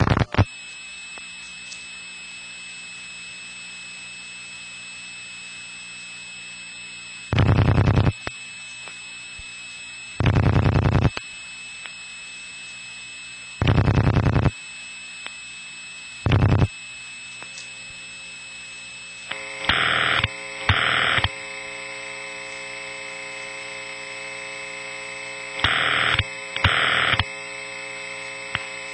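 Telephone call heard down a very long line, with a steady hiss and hum from the line's length. Four short bursts of rapid clicking come as digits are dialed. Then ringback in the double-ring pattern starts: two pairs of short rings about six seconds apart, beginning about two-thirds of the way through.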